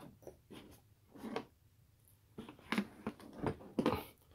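A 24-inch steel breaker bar being lifted out of its blow-molded plastic tool case: irregular knocks, scrapes and rattles of metal against hard plastic, busiest in the second half.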